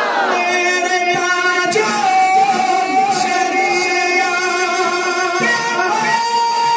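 A man's voice singing a naat through a stage microphone, drawn out in long held notes, stepping up to a higher held note near the end.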